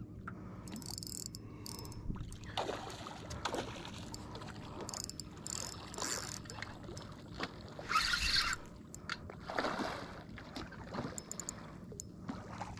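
Surface splashes of a redfish striking and thrashing at a topwater lure, a few short bursts with the loudest about two-thirds of the way through, over water lapping against a small skiff's hull.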